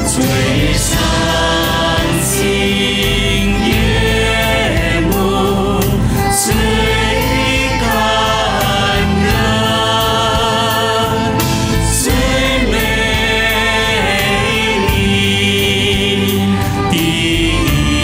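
A choir singing a Mandarin song with instrumental accompaniment, the music for a stage dance, its lyrics running on without a break.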